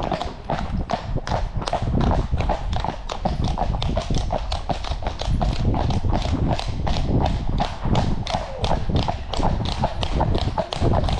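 Shod horses' hooves striking a tarmac lane in a quick, steady run of hoofbeats, several a second, with a steady low rumble beneath.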